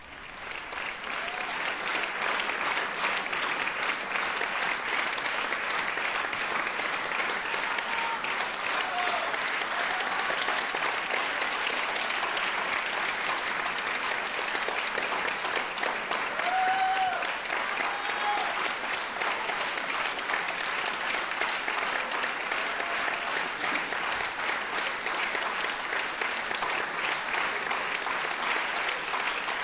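Theatre audience applauding, swelling up over the first couple of seconds and then holding steady and dense, with a few short calls rising above the clapping.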